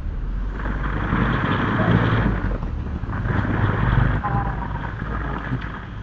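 A motor vehicle passing by, its noise swelling about half a second in and fading after about five seconds.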